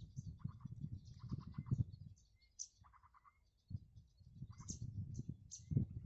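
Twigs crackling and rustling as a spotted dove shifts on its nest over its chicks, pausing briefly in the middle. Small birds chirp and give short pulsing trills in the background.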